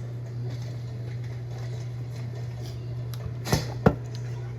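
Two short knocks of grocery items being handled, a moment apart about three and a half seconds in, the second sharper, over a steady low hum.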